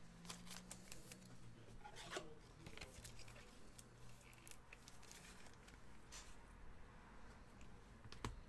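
Near silence: faint scattered clicks and rustles of trading cards being handled, over a low steady hum.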